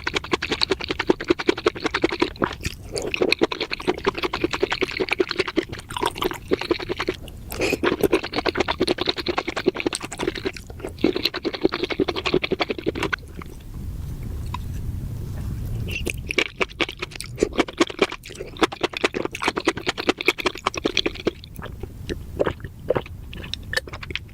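Close-miked chewing of big bites of spicy mushrooms: rapid wet crunching and squishing, with a steadier, duller stretch a little past the middle.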